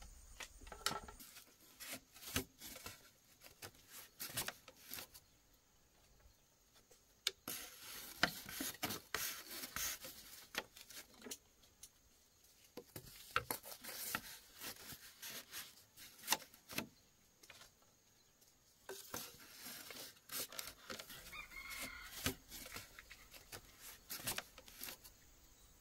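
Irregular light clicks, knocks and rustling of objects being handled, coming in clusters with short pauses between.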